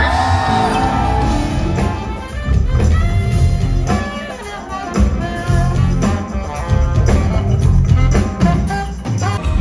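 Pop band music with a heavy drum and bass beat, played without singing.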